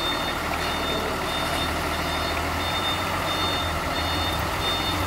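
Truck reversing alarm beeping at an even pace, roughly one high beep every 0.7 s, over the steady low running of the Hino flatbed truck's diesel engine as it reverses.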